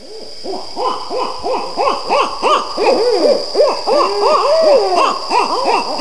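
Several barred owls caterwauling, the 'monkey chatter': a fast jumble of overlapping hoots and rising-and-falling cackling calls. This is the calling typical of territorial disputes or breeding behavior.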